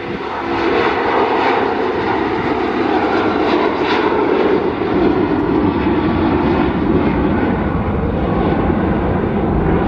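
Boeing 757 jet airliner climbing out just after lift-off, its engines at take-off power giving a loud, steady jet roar.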